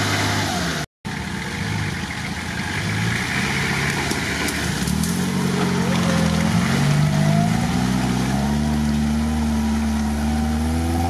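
Lada Niva four-cylinder engine running under load as the car drives through deep muddy water, its pitch rising and falling with the throttle from about halfway on, with water splashing around the wheels. The sound cuts out briefly about a second in.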